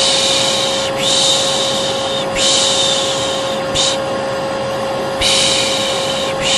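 Hair dryer running with a steady hum, overlaid by a person's repeated 'shhh' shushing, hisses of about a second each with short gaps between them. This is shushing plus hair-dryer white noise meant to calm a colicky baby.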